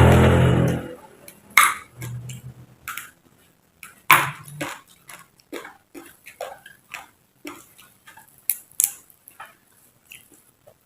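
Close-up mouth sounds of chewing crisp raw lalapan vegetables: a loud bite-and-crunch at the start, then irregular sharp crunches and clicks, a few a second.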